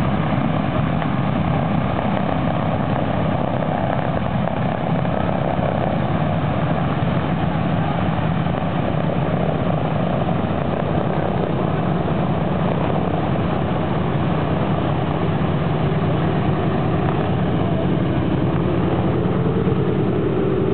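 Boeing B-17 Flying Fortress taxiing, its four Wright R-1820 Cyclone nine-cylinder radial engines running at low taxi power in a loud, steady drone.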